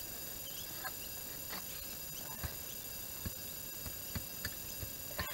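A long-handled digging tool being driven into the soil of a post hole: a series of dull thuds, about one a second at first and closer together near the end.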